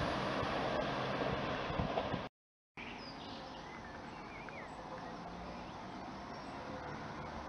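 A train moving away, its rumble fading, cut off abruptly about two seconds in. After a brief silence, quiet outdoor ambience follows with a few bird chirps.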